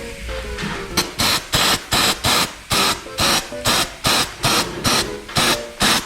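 Air-conditioner cleaning spray squirted in quick short bursts, about three a second, starting about a second in, over background music.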